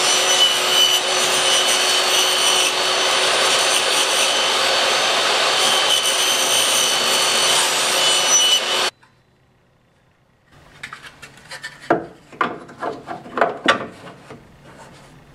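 Table saw running and ripping a narrow strip: a loud, steady cutting noise over the motor's whine, which cuts off abruptly about nine seconds in. After a short quiet there are scattered light clicks and knocks of a clear plastic cover being handled and fitted over a bus bar.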